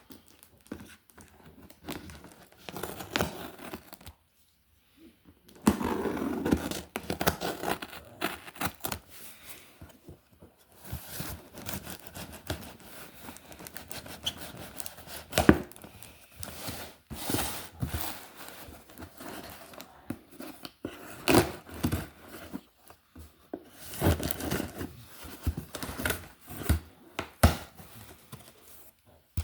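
A cardboard mystery box being opened by hand: tape and cardboard tearing and packing material crinkling, in irregular bursts with sharp knocks and scrapes, broken by a moment of dead silence about four seconds in.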